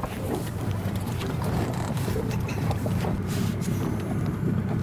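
Wind buffeting the microphone on a small inflatable boat, a steady low rumble, with light knocks and rustles of scuba gear as a diver's tank harness is fitted.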